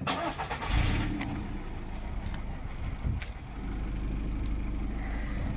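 Car engine idling with a steady low hum that grows a little louder about three and a half seconds in.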